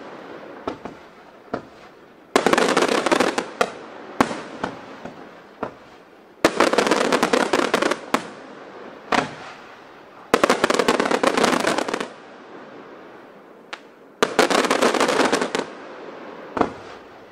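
Aerial fireworks display: four volleys of rapid-fire bangs and crackling, each lasting about a second and a half to two seconds and coming about every four seconds, with single bangs between them.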